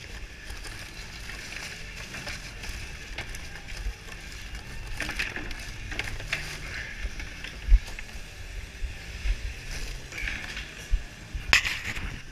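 Snow crabs clattering and scraping across a metal sorting table as they are pushed and sorted by gloved hands: irregular clicks and knocks over a steady low rumble, with a sharp thump about eight seconds in and a louder burst of noise near the end.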